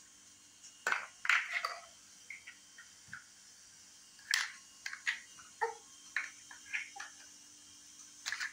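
Plastic toy animals and toy trucks being handled and set down: irregular light clicks and knocks of plastic on plastic, the loudest cluster about a second in.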